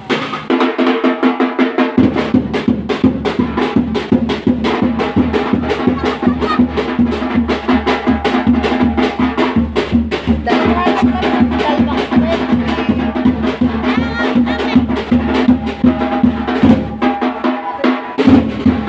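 Street drum band of bass and snare drums playing a fast, steady beat; the bass drum strokes come in about two seconds in.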